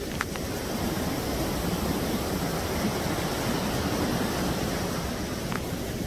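White water rushing and churning through a dam spillway, a steady dense rush with a faint click near the start.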